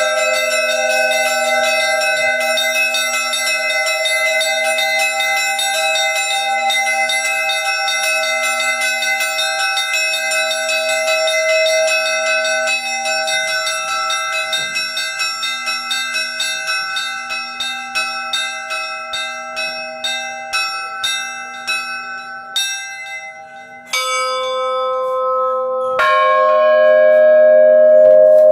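Bells ringing in a rapid, continuous run of strokes that gradually slow and fade. After a brief lull, two louder, long-ringing strikes come about two seconds apart near the end. A steady low tone sits underneath throughout.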